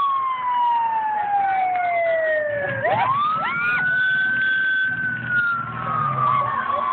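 Police-car siren wailing: a slow falling tone that swoops back up sharply about three seconds in, holds, then falls again, with engine noise underneath.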